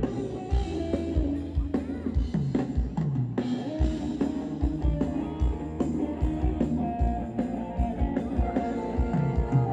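Live Thai ramwong band music played over loudspeakers, with a drum kit keeping a steady beat and electric guitar.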